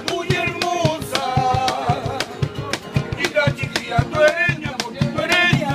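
Live Peruvian folk music: acoustic guitar played to a steady hand-struck beat on a cajón box drum, with a man singing.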